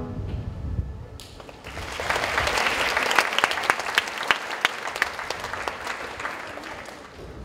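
Audience applauding: the clapping starts about a second in, builds to a dense patter of many hands, then thins out and fades near the end.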